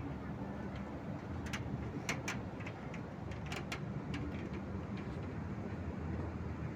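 Steady low background rumble, with a handful of short, sharp clicks between about one and a half and four seconds in.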